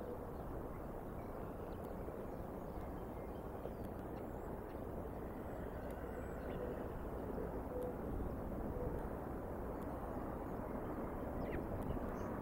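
Steady outdoor background rumble and hiss picked up by a nest-cam microphone, with only faint, brief sounds above it.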